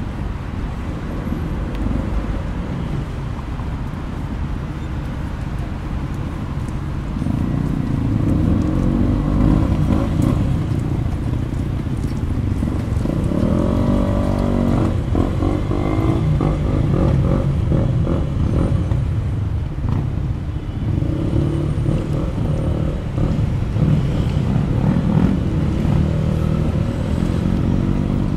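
Motor traffic on a busy city street: a continuous rumble of engines and tyres, with engines swelling up louder from about a quarter of the way in and one rising then falling in pitch about halfway through.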